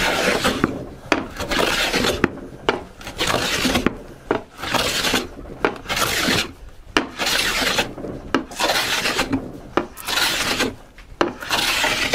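Metal bench plane cutting white oak in repeated push strokes, about one a second, each a rasping shave with short gaps between. The blade is still skipping over the high points of the rough face, a sign that the surface is not yet down flat to the marking-gauge line.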